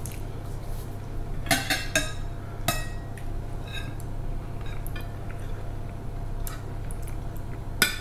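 Forks and spoons clinking and scraping on ceramic plates as people eat, with a few sharp clinks: a cluster about a second and a half in, one near three seconds, and the loudest just before the end.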